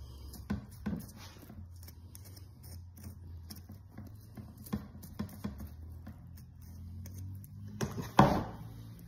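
Small scattered clicks and soft handling noises of a scalpel cutting and hands working a deer cape against the skull, over a steady low hum. A single loud thump about eight seconds in.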